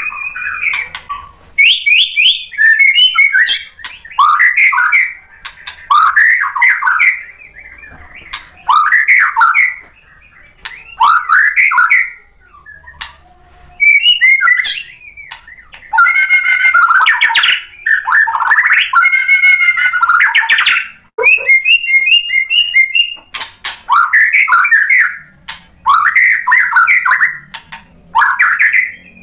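Caged male white-rumped shama (murai batu) singing loud, varied phrases of sweeping whistles and quick notes. The title calls this the bird showing off its full repertoire of song material (isian). Each phrase lasts a second or two with short pauses between. A longer, denser outpouring comes past the middle, followed by a rapid run of repeated high notes.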